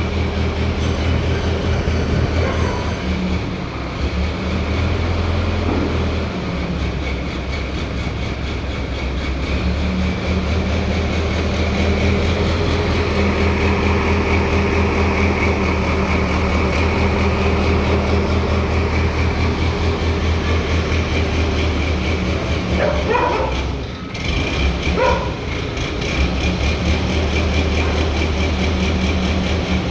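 Heavy crane engine running steadily under load, a deep drone with a constant pitch. A dog barks twice near the end.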